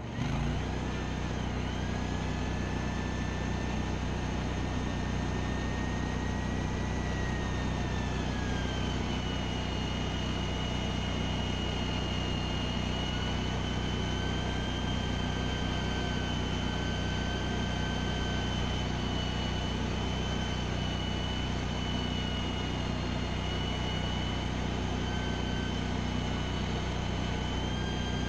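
A steady engine idle underneath a thin, high mechanical whine, typical of an electric winch pulling a Ford 600 tractor onto a flatbed trailer. The whine drops in pitch about eight seconds in and then holds steady.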